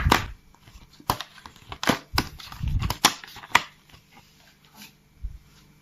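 Paper for a handmade paper bus being torn off its sheet and handled: a run of sharp crackles and snaps through the first four seconds, thinning out to a few faint ones near the end.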